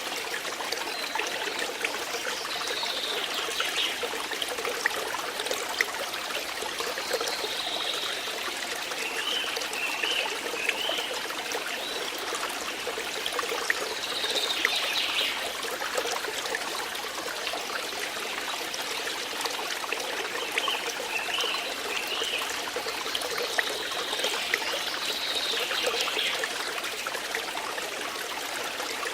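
Water flowing and trickling steadily, with a brief higher warbling sound recurring every few seconds.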